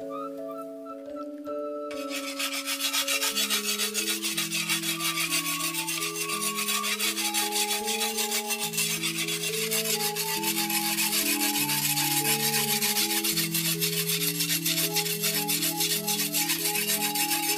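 Background instrumental music with a slow melody of plucked or struck notes. About two seconds in, a steady, dense rasping scrape joins and continues over the music, like something being rubbed or grated.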